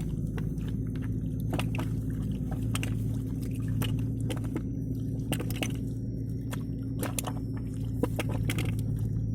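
A steady low motor hum under many irregular, sharp wet clicks and squelches.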